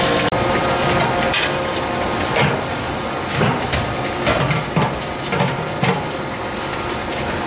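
Metal clanks and knocks as a stainless steel stirring paddle and its motor bracket are fitted onto a steel cooking pot, a knock every half second to second over a steady machine hum. The very start holds a moment of the soy-milk grinder running.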